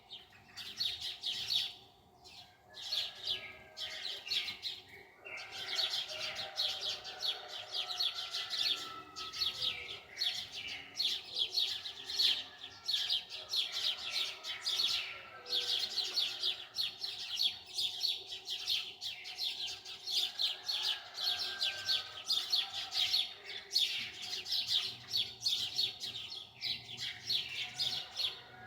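Small birds chirping and twittering rapidly and continuously, with a few brief pauses.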